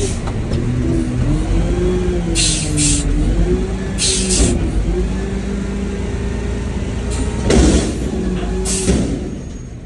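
Garbage truck engine running, its pitch rising and falling as it revs, with several short, sharp hisses of air.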